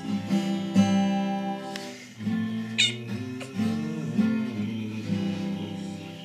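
Acoustic guitar being played, its chords ringing, with a cat's short cry over it about halfway through.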